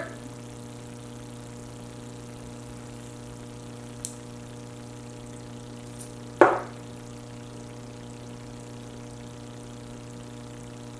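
Steady hum with several constant tones, broken by a small click about four seconds in and a short, louder knock about six and a half seconds in.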